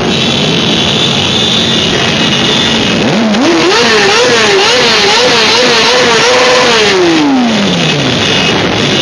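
Motorcycle engine revved up hard, blipped up and down several times at high revs, then let fall slowly back toward idle, over the running of many motorcycles rolling past in a rally.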